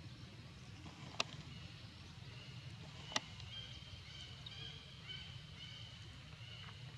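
Faint outdoor ambience with a steady low rumble, two sharp clicks about two seconds apart, and a faint high-pitched chirping through the middle.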